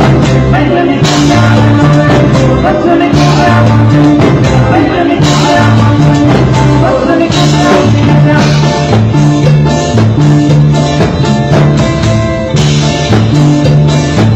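Latin dance band playing loudly: a drum kit and percussion over a repeating bass line, with bright splashes every couple of seconds.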